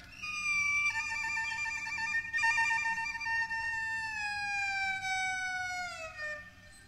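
Two-string bowed fiddle holding a long high note, joined by a lower note about a second in; both then slide slowly down in pitch together in a siren-like glide and fade out near the end.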